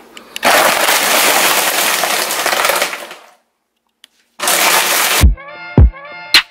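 Ninja Pro Touch countertop blender running at full speed, then cutting off about three seconds in. After a short gap comes a brief burst of noise, and a hip hop beat starts with deep booming kicks.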